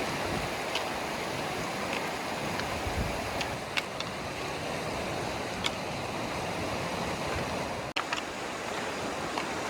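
Steady rush of a flowing mountain stream and waterfalls, with a few faint ticks; the sound cuts out for an instant about eight seconds in.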